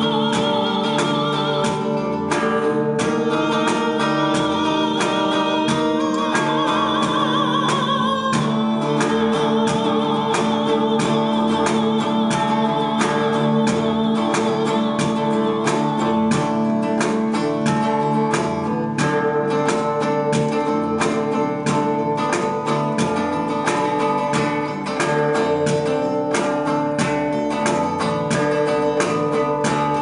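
Live band music: a woman singing long held notes with vibrato over a hollow-body electric guitar picked note by note.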